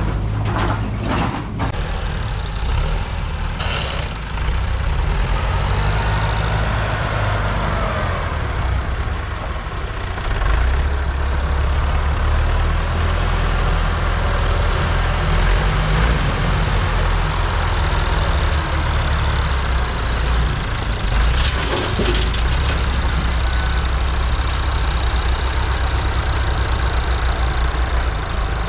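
Tractor engine running steadily with a low rumble, getting louder about a third of the way in, with a short burst of noise about three-quarters through.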